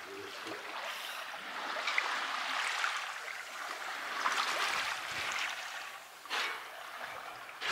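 Sea water rushing and splashing, swelling and easing, with a short louder splash a little after six seconds.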